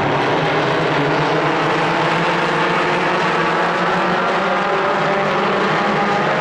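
A pack of pure stock race car engines running together at low, steady speed, a dense engine drone that neither rises nor falls as the field rolls in formation.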